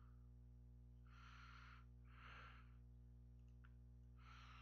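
Near silence over a steady electrical hum from the microphone, with three soft breaths into it. A couple of faint mouse clicks come about three and a half seconds in.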